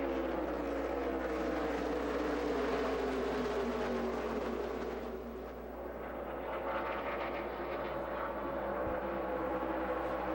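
A pack of NASCAR Cup stock cars' V8 engines running at full throttle, many engine notes blending together and dropping in pitch as the field sweeps past. About five seconds in there is a brief lull, then the next group of cars comes through.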